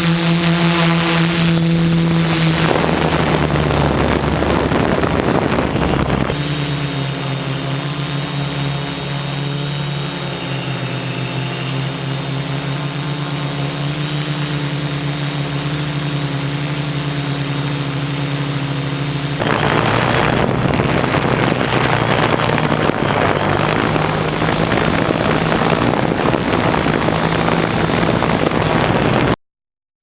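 OFM 650S V2 quadcopter's motors and propellers humming steadily in flight. A rushing noise of gusty wind on the microphone comes and goes over the hum. The sound cuts off abruptly near the end.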